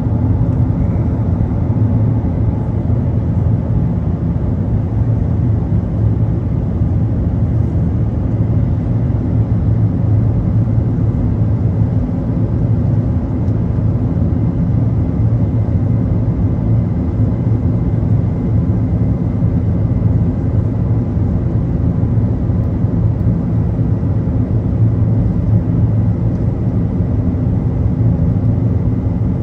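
Steady cabin noise inside an Airbus A380's upper deck in flight: a deep, even drone of engines and airflow with a faint steady whine above it.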